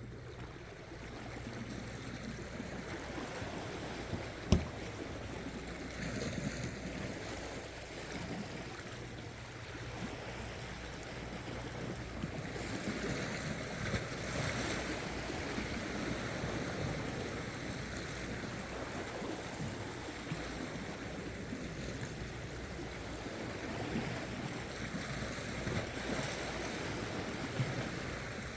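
Seawater washing and lapping against shore rocks, a steady wash, with one sharp click about four and a half seconds in.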